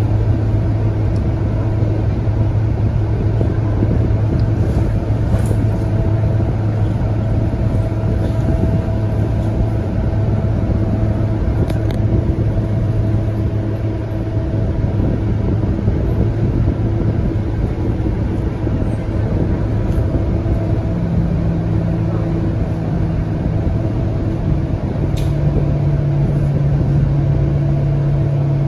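Scania K230UB city bus's diesel engine idling steadily, heard from inside the passenger cabin as a low, even hum. A slightly higher hum joins in over the last third.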